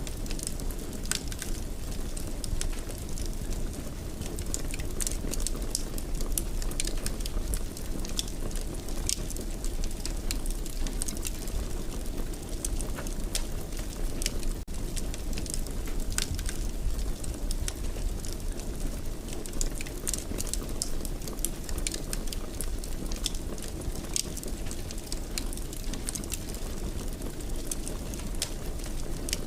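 Wood fire burning in a fireplace: a steady low rumble of flames with frequent small crackles and pops throughout.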